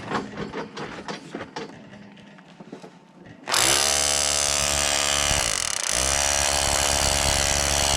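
Handheld power drill running at speed as a homemade concrete vibrator, settling freshly poured concrete down into the wall cells. A few light knocks and handling clicks come first; the drill starts suddenly about three and a half seconds in and runs with a steady whine, slowing briefly near the middle before speeding up again.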